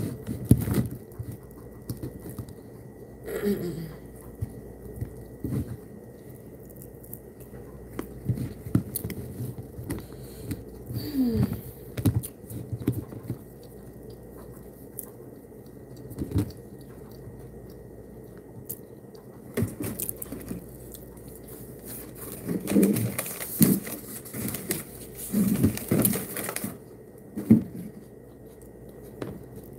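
Close-up sounds of a person eating: chewing and other mouth sounds, with scattered clicks and taps from handling food and black plastic cutlery. A cluster of louder rustling comes about three-quarters of the way through.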